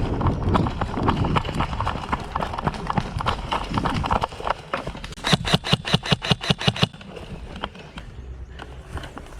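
Running footsteps crunching and rustling through undergrowth, then about five seconds in a rapid, evenly spaced burst of about a dozen airsoft gun shots lasting under two seconds.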